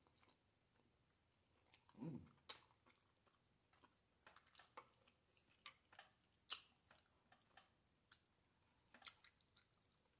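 Faint close-miked chewing and lip smacking: soft, irregular wet mouth clicks, with a short hum about two seconds in.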